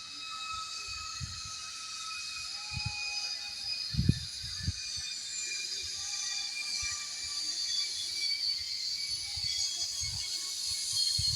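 Sea waves washing in: a steady hiss that swells near the end, with a few steady high tones over it and some low thumps about three to five seconds in.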